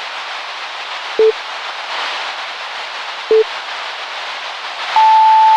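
Electronic beeps over a steady static hiss: two short low beeps about two seconds apart, then a long, higher steady tone that starts near the end.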